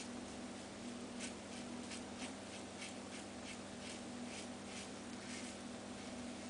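Short rasping strokes of a Merkur slant double-edge safety razor with a Feather blade, scraping stubble and lather off the face, about two strokes a second, with a steady low hum underneath.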